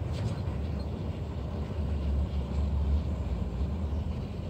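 Ford F-450 Super Duty pickup pulling slowly away, a steady low rumble from its engine and tyres.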